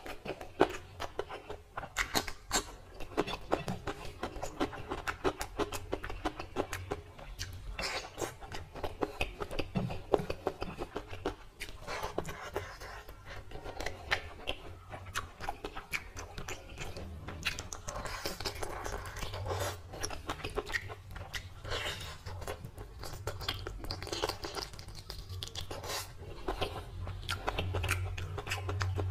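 Close-up eating sounds: fingers squishing and mixing rice with mutton curry on a plate, with many short wet clicks, and chewing.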